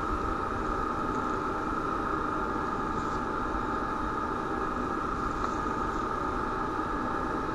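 Steady background rumble and hiss from an outdoor nest-cam microphone, with a faint constant hum and no distinct event.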